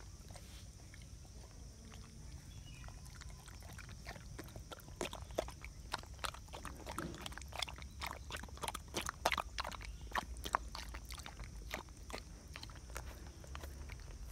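A dog lapping and chewing thin ragi malt porridge with kibble from a stainless steel bowl: quick wet laps and clicks, few at first, coming thick and fast from about a third of the way in until near the end.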